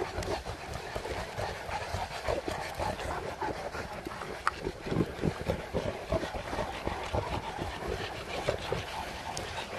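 A large pack of St. Bernard dogs heard together as a continuous, uneven mix of dog sounds over a low, unsteady rumble, with one brief high-pitched note about four and a half seconds in.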